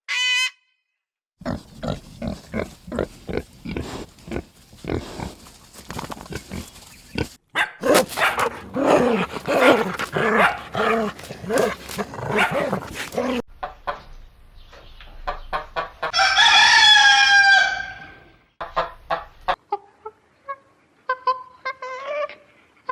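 Chickens clucking in short repeated calls, with one loud rooster crow of about two seconds about two thirds of the way through.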